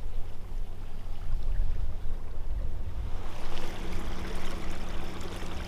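Small boat moving through water, with the steady electric hum of a bow-mounted trolling motor that gains a higher tone about three seconds in. Wind buffets the microphone.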